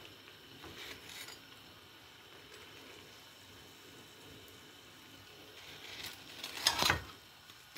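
Metal kitchen tongs clicking and clattering in a short cluster near the end as fried dough rings are lifted from the oil and set down on paper towels, over the faint steady sizzle of dough frying in oil.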